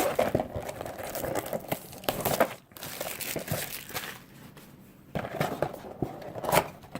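A cardboard blaster box of baseball card packs being torn open by hand: crinkling and rustling of packaging with sharp tearing clicks, in uneven bursts that are loudest near the start, about two and a half seconds in, and again near the end.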